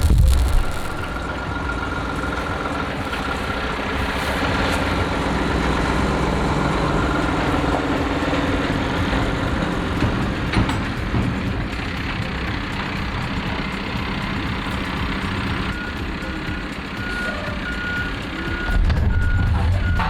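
A heavy diesel vehicle running steadily while it reverses, its backup alarm beeping, with the beeps coming as a string of short pulses near the end.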